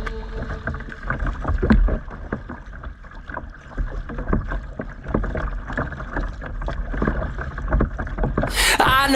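On-the-water sound from a kayak: irregular small knocks and splashes over a low wind rumble on the microphone. Music comes in near the end.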